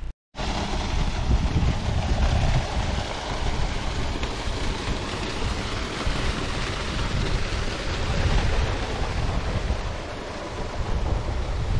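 Wind buffeting the microphone, a steady rushing noise with gusty low rumbles.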